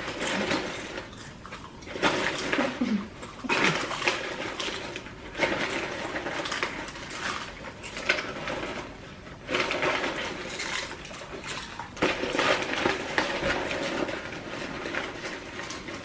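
Two people eating as fast as they can: irregular bursts of chewing, slurping and mouth noises mixed with clicks of food and dishes being handled.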